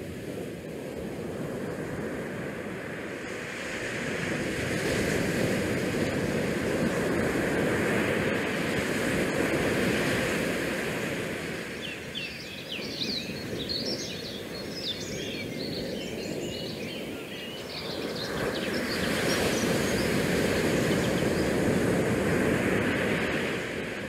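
Wind and the sea rushing past a cruise ship's open promenade deck, a steady noise that swells louder twice. In the middle it is joined by a cluster of short, high chirps or squeaks.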